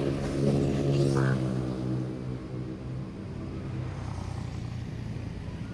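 A motorcycle engine passing close alongside and pulling away. Its steady drone fades over the first three seconds, leaving a low road and wind rumble.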